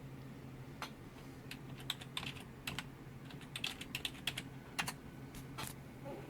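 Computer keyboard keys being typed: irregular runs of sharp clicks, densest in the middle, over a steady low hum.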